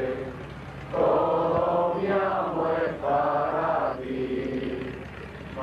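Voices singing a slow Marian hymn together in long, drawn-out phrases. A phrase swells in about a second in and holds until about four seconds, then fades to a softer held note near the end.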